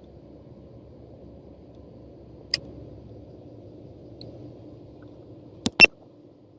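A steady low rumble with a faint hum in it, broken by a single click a couple of seconds in and two sharp clicks close together near the end, the second one the loudest.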